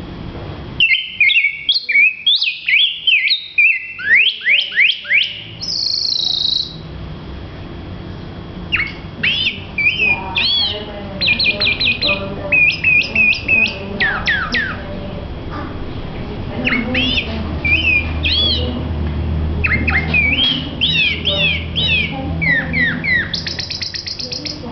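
A caged songbird known as a "rey del bosque" singing loud, clear whistled phrases of quick rising and falling notes, broken by short pauses, with one buzzy note about six seconds in.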